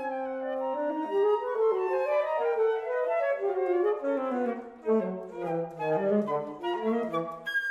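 Flute and alto saxophone playing a classical duet, two lines of quick notes weaving around each other, the saxophone below the flute. There is a brief break just before the end.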